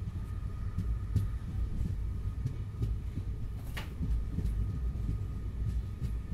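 Sleeper-class railway coach running along the track, heard from inside: a low, steady rumble with faint clicks now and then and one sharper click about four seconds in, over a faint steady whine.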